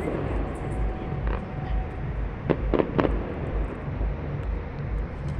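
Fireworks going off: three sharp bangs in quick succession about halfway through, over a steady low rumble of outdoor background noise.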